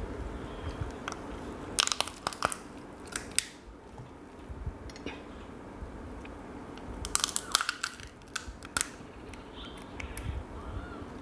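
Cooked spiny lobster shell being cracked and pulled apart by hand: clusters of sharp, crunchy cracks, one spell about two seconds in and another about seven seconds in.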